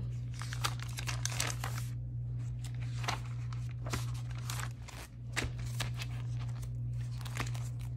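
Paper planner pages being flipped and rustled, then a spiral-bound sticker book handled with crinkling of its pages, in many short crisp strokes over a steady low hum.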